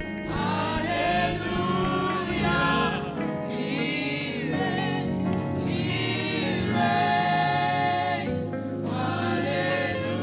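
Gospel worship music: several voices singing phrases a few seconds long over steady instrumental backing.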